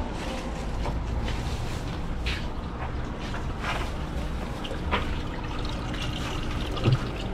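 Water trickling and bubbling in an aerated live-bait tank over a steady low hum, with a few light clicks and a short thump near the end.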